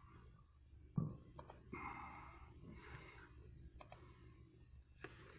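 Faint handling noise: a soft thump about a second in, a short rustle, and two pairs of small sharp clicks. No music.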